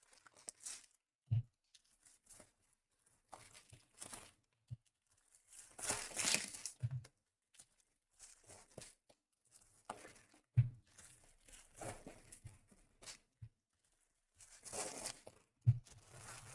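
Trading-card packaging being torn open and crinkled by hand: wrapper tearing in several rustling bursts, the longest about six seconds in and near the end, with a few dull thumps as the box and packs are handled.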